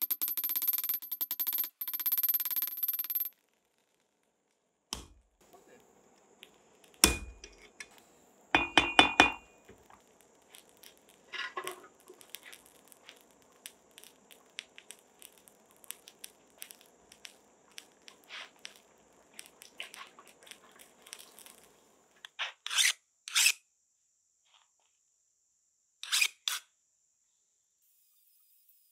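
Scattered metal knocks and clinks of a hammer and tools at an anvil, with a few hard strikes in quick succession near the middle and smaller taps and clicks around them.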